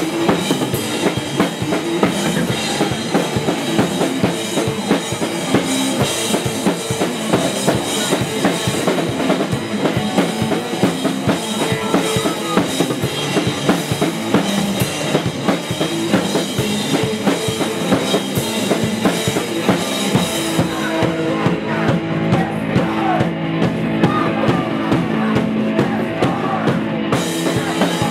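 Live rock band playing: a driving drum kit with bass drum and snare under electric guitar.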